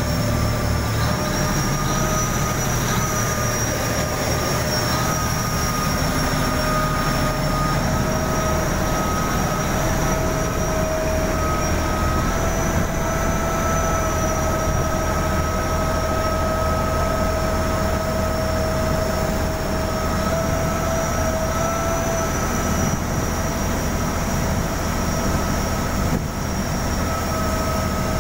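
Chao Phraya express boat's diesel engine running steadily under way: a constant low drone with a high whine held on a few steady tones, mixed with the rush of its wake against the hull.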